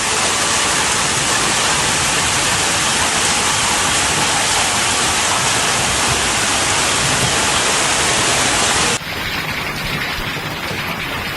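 Hailstorm pelting down in a dense, steady hiss. About nine seconds in it cuts off abruptly, replaced by a somewhat quieter storm hiss.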